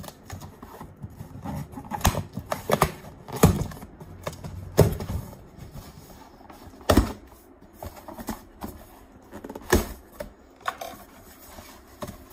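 Cardboard shipping box being opened by hand: a string of irregular sharp knocks and taps, the loudest about three and a half, five, seven and ten seconds in, with scraping and rustling of cardboard between them.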